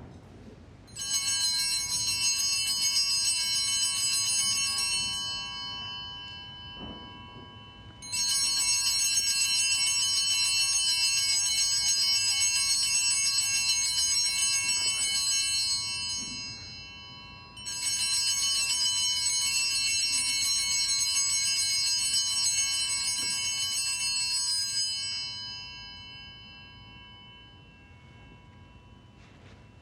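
Altar bells (a cluster of Sanctus bells) shaken in three long peals of several seconds each, marking the blessing with the Blessed Sacrament at Benediction.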